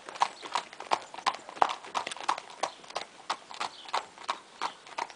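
A horse's hooves clip-clopping on a hard dirt track as it is trotted in hand, an even rhythm of about three hoofbeats a second.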